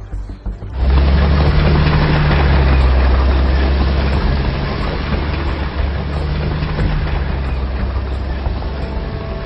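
Heavy engine rumble with a deep steady drone, starting suddenly about a second in, loud at first and easing off slightly toward the end.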